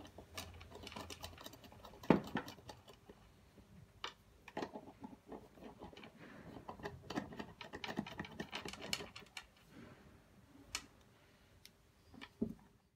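Small brass and steel air-line fittings handled and screwed together by hand: scattered light clicks, clinks and taps of metal parts, with one louder knock about two seconds in.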